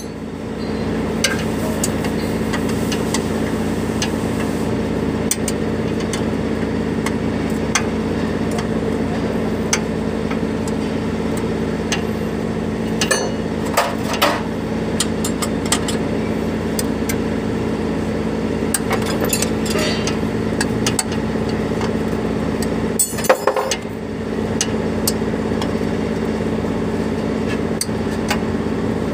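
An engine runs steadily at idle throughout, with scattered metallic clicks and knocks from parts and tools being handled, clustered about halfway through and again near the end.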